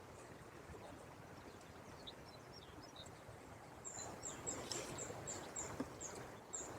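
A small bird singing: a few faint chirps, then a quick run of about ten short, high chirps, roughly three a second, over steady outdoor background noise.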